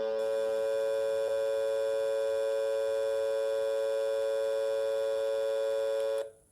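Dial tone of an Ooma Telo Air 2 home phone line, heard from a picked-up handset: a steady tone that cuts off suddenly about six seconds in.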